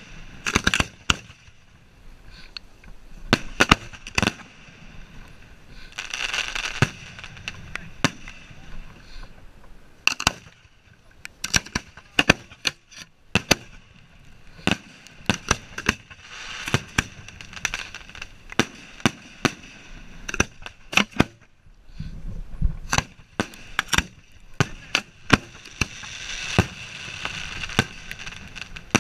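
Fireworks shells launching from mortar tubes close by, a rapid, irregular string of sharp bangs, several a second at times, as fuses are lit by hand with a road flare. Between the clusters of launches comes a hissing sputter of burning fuses and the flare.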